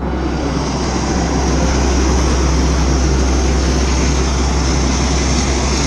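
Skydiving jump plane's propeller engines running: a loud, steady drone with a steady high whine over it.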